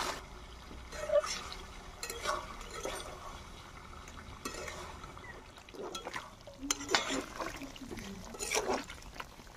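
A metal spoon stirring thick pork curry in a metal cooking pot, with scattered scrapes and knocks of the spoon against the pot.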